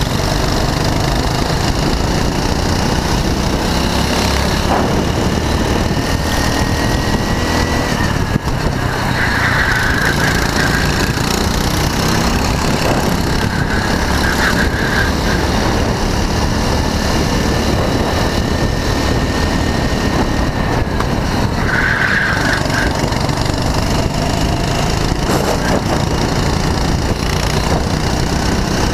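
Onboard sound of a go-kart racing: its small engine runs hard, the pitch rising and falling as it accelerates and lifts through the corners, over a heavy low rumble.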